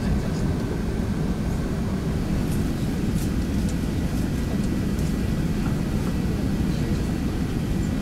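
Steady low cabin rumble of an Airbus A380-861 rolling on the ground, its Engine Alliance GP7200 engines running evenly, with a few faint ticks near the middle.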